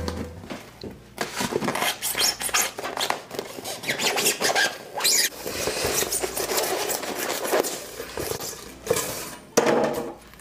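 A knife blade sawing through a styrofoam half ball: a scratchy, squeaky rasping in quick repeated strokes as it cuts through the foam.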